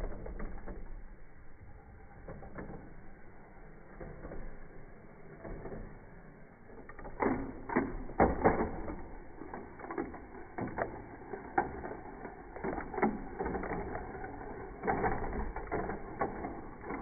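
Plastic Lego train wheels clicking and rattling over the track joints, slowed down so the sound comes out low and dull. The clicks cluster about seven to nine seconds in and again near fifteen seconds, over a low rumble.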